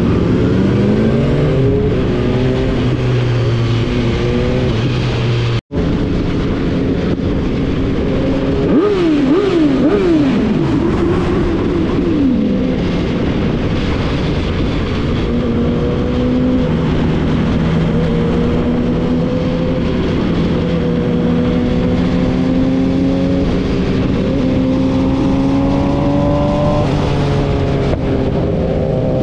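Sport motorcycle engine heard from the rider's own bike under way, its pitch climbing and dropping with throttle and gear changes, over a steady rush of wind. About nine to twelve seconds in comes a quick run of sharp revs up and down, and the sound cuts out for an instant about six seconds in.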